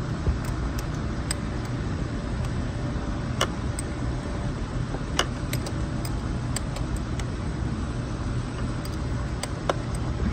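1998 Corvette's 5.7 L LS1 V8 running steadily, heard from under the hood. A few sharp metallic clicks come from hands working at the wiring and battery area.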